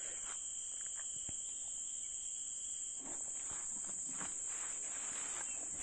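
Steady high-pitched drone of insects, with faint rustling and handling noises starting about halfway through.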